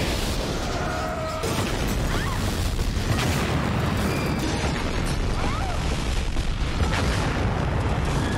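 Movie sound effects of a building exploding and burning: a loud, continuous blast of noise, heavy in the low end, with scattered crackles of debris.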